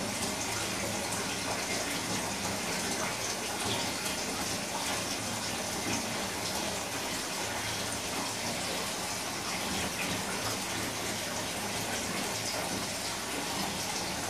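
A steady, even rushing noise that holds at one level throughout, with a faint low hum beneath it.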